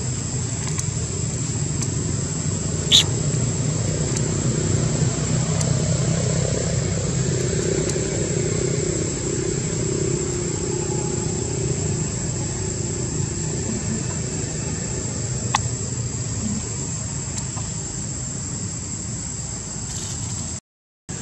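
A steady low drone of a distant engine, under a constant high-pitched whine. Two short sharp clicks, about three seconds in and about fifteen seconds in, and a brief dropout near the end.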